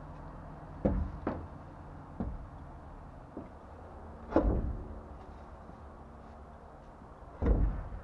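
Truck tire on its rim being handled and set onto a dump trailer's wheel hub, giving a series of dull thumps and knocks, the loudest about four seconds in and another near the end.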